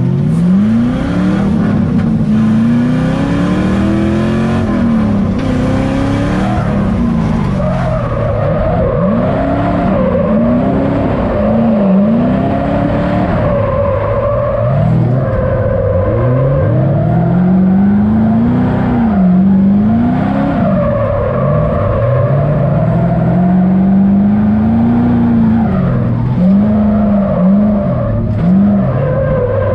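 Chevrolet LM7 5.3-litre LS V8 in a Mazda FC RX-7, heard from inside the cabin, revving up and down over and over as the car is driven hard around the track.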